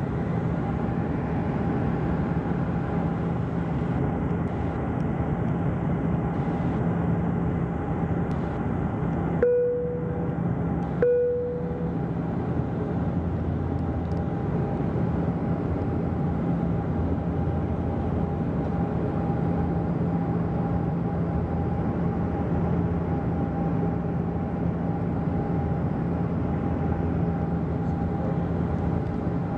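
Steady drone of a Bombardier Q400's turboprop engines and propellers heard inside the passenger cabin during the descent. About a third of the way in come two short chime tones, a second and a half apart.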